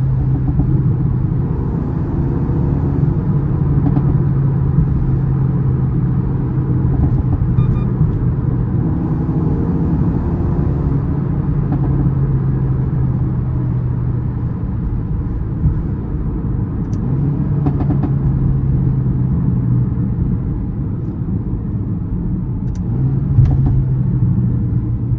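Mercedes-AMG A35's turbocharged 2.0-litre four-cylinder engine and exhaust droning at fairly steady revs while driving, over a low road rumble. The engine note eases twice for a few seconds in the second half.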